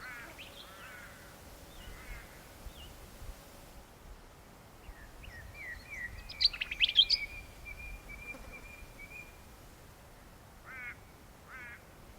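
Wild birds calling: short trilled chirps here and there, and a burst of sharp, high chirps about six to seven seconds in, followed by a thin held whistle.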